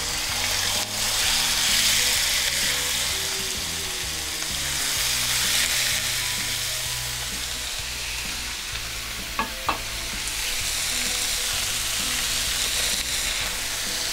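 Chopped raw beef sizzling in hot oil in a nonstick skillet, a steady frying hiss as the meat starts to cook. A couple of short clicks sound about two-thirds of the way through.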